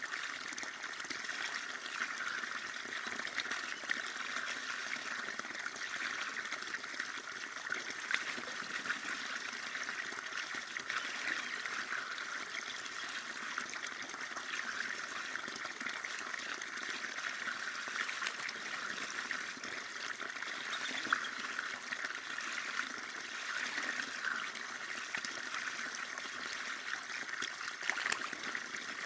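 Running water trickling and babbling steadily, with many small irregular splashes and no pauses.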